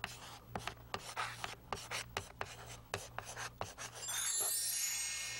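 A quick, irregular run of sharp clicks or taps, then near the end a bright ringing chime that holds and starts to fade.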